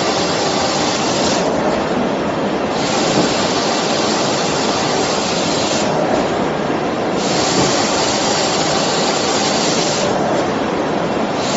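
UNO X Series one-pass corrugated board inkjet printer running, a steady loud rushing machine noise as cardboard sheets ride its belt conveyor. The hissy upper part of the noise drops away for about a second, roughly every four seconds.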